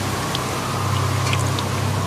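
The overturned quad bike's engine running on in a steady low hum, with scattered faint light ticks over it.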